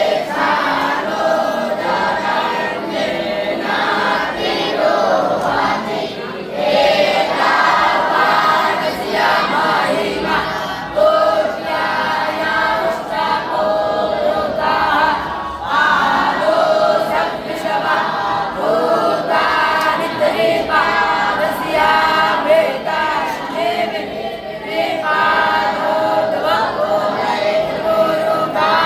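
Many voices singing a devotional chant together, unaccompanied, running on without a break.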